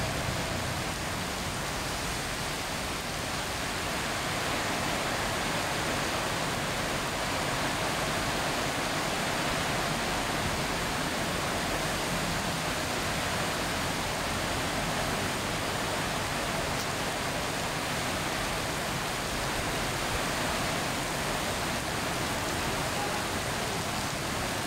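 Heavy rain pouring steadily onto a road and pavement in a windy, typhoon-like storm: an even, unbroken hiss.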